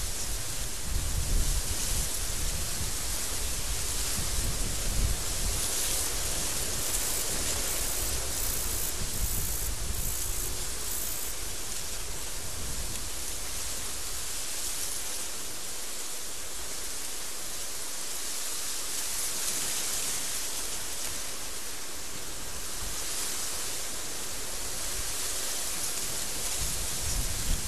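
Strong desert wind blowing in gusts, a steady rushing hiss that swells and eases, with a low rumble in the first several seconds and again near the end.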